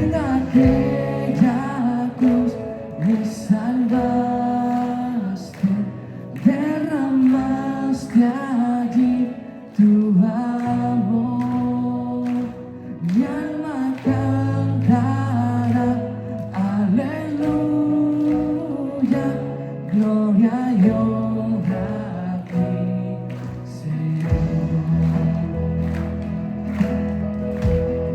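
Live worship band playing a song with a lead voice singing the melody over bass, guitars, piano and a steady drum beat.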